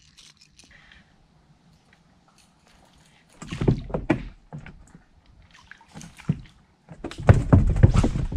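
Knocks and thumps from fishing gear being handled in a small boat, in three short clusters after a few seconds of near quiet.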